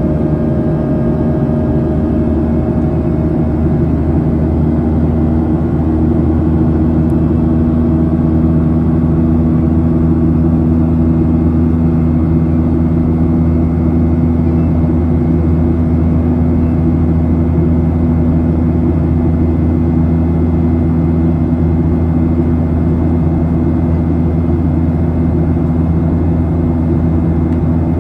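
Boeing 737-800's CFM56-7B turbofan engines heard from the cabin beside the wing, running steadily at climb power. It is a constant loud drone with several steady low hum tones and a faint higher tone over it.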